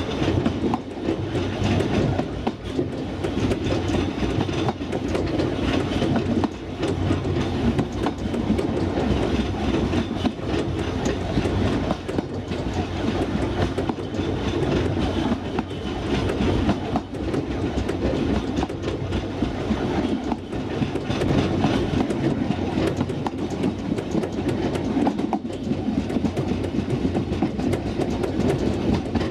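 A 2 ft narrow-gauge train running along the track: a steady rumble of wheels on rail with frequent small clicks, heard from the carriage's open veranda.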